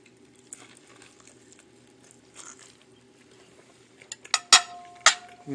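A metal spoon clinking against a ceramic sauce bowl: a few sharp clinks about four seconds in, the last one about half a second later, each leaving a short ringing tone. Before them, only faint handling sounds at the table.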